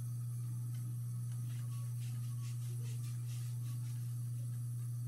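Faint rhythmic rubbing at the scalp, about three strokes a second, from about a second in until near four seconds: wig glue being rubbed off the hairline with alcohol. A steady low hum runs underneath and is the loudest sound.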